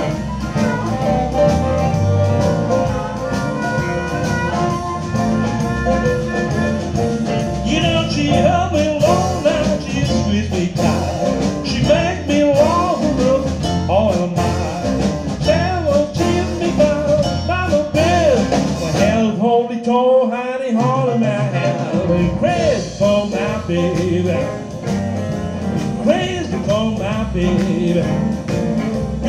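Live blues band of harmonica, two electric guitars, piano, electric bass and drums playing, with a lead line of bent, wavering notes over the band. About two-thirds of the way through, the bass and drums cut out for about a second and a half, leaving the lead alone, then the full band comes back in.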